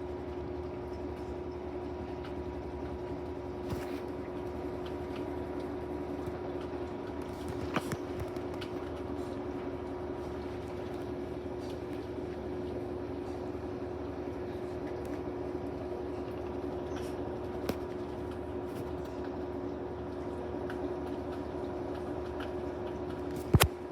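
Whirlpool 22 kg washing machine on its spin cycle, a steady hum with a constant pitch. A few light clicks come through, and a single sharp knock sounds just before the end.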